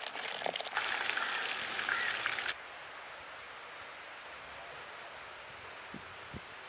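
Beer pouring from bottles into a steel basin: a loud, splashing rush of liquid that cuts off abruptly about two and a half seconds in. A faint, steady hiss of background follows.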